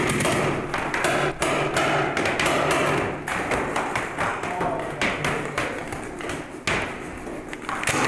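Paintball markers firing in rapid, irregular pops.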